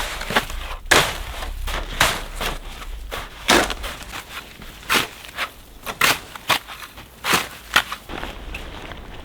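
A series of sharp knocks or impacts at an uneven pace, roughly one a second, some close together in pairs, thinning out near the end.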